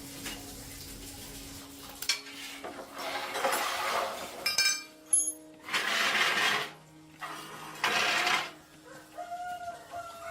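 Metal parts and tools clinking against each other, with a short run of ringing clinks near the middle, between three bursts of noise each about a second long.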